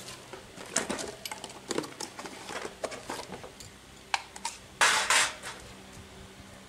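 Small metal hardware and tools clinking and rattling as someone rummages for a lost screw. There are many light clicks, then a louder rattle about five seconds in.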